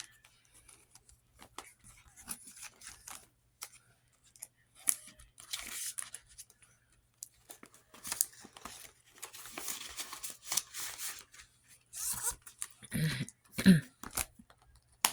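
Paper handling: cash bills and paper savings envelopes rustled and shuffled in scattered short bursts, busier in the last few seconds, with a sharp click at the very end.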